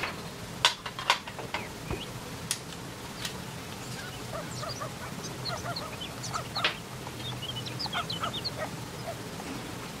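A few sharp clicks from handling the copper tube, then a soldering iron on a copper tube joint with the flux and solder sizzling in many small squeaky pops and crackles from about four seconds in.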